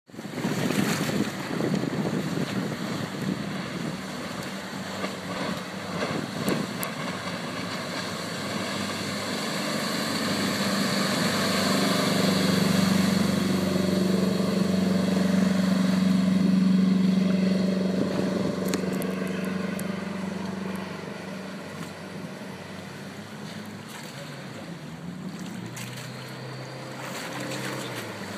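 Jet boat powered by a 300 hp FNM marine diesel driving a Hamilton 212 water jet, running at speed past the shore: a steady engine note with the rush of the jet and spray. It grows louder to a peak in the middle, then fades as the boat moves away.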